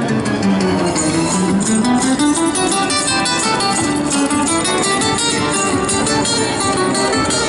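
Street musician playing an acoustic guitar: a quick run of plucked notes over a melody that steps down and climbs back up.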